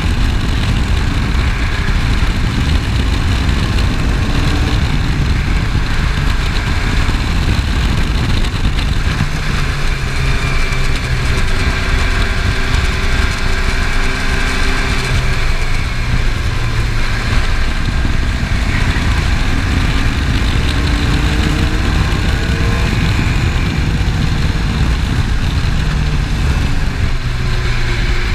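Open-wheel formula race car's engine running hard on track, heard from the cockpit. Its note rises and falls repeatedly under heavy low wind rumble.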